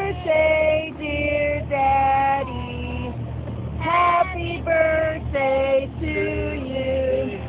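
Young girls singing a song together in high voices, about ten slow, held notes. A steady low hum from the pontoon boat's motor runs underneath.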